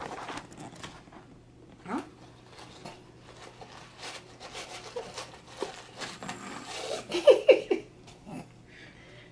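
Gift wrapping paper crinkling, rustling and tearing as a small gift box is unwrapped by hand, in quick irregular crackles, busiest about four to seven seconds in.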